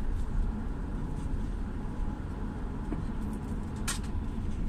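Steady low rumble of a car's engine and tyres on a wet road, heard inside the moving car, with one short sharp tick about four seconds in.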